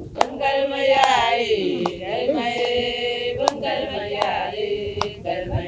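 A group of voices singing a chant-like song in chorus, with long held notes that slide in pitch. About five sharp percussive strikes land through it.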